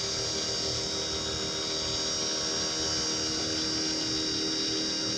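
Wood lathe running steadily, spinning pen blanks on a mandrel while friction polish is applied, with a constant motor whine; a lower tone joins about three and a half seconds in.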